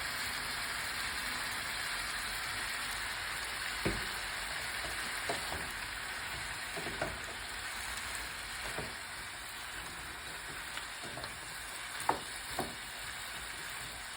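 Chicken wings frying with curry powder and onion, sizzling steadily in a pot, with a few light knocks as they are stirred.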